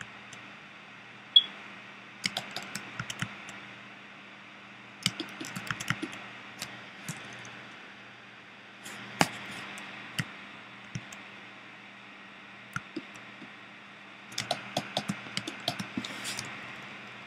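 Computer keyboard keys and mouse buttons clicking in short, irregular bunches every few seconds, over a steady low electrical hum.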